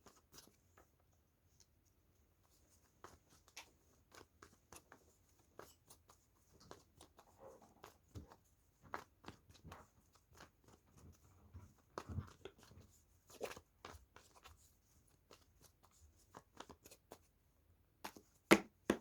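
Tarot cards being shuffled by hand: soft, irregular card-on-card clicks and rustles, with a sharper snap of cards shortly before the end.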